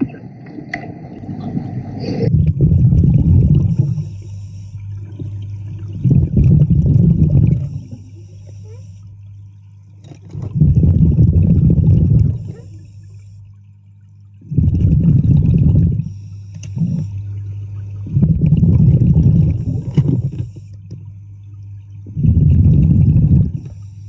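A diver breathing underwater. About every four seconds exhaled air bubbles out in a loud, low rush, each lasting a second or two, with a brief high hiss between the rushes on each in-breath, over a steady low hum.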